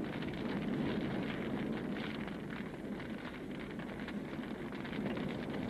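Steady rumbling, crackling noise of a dubbed battle soundtrack, without any single distinct blast.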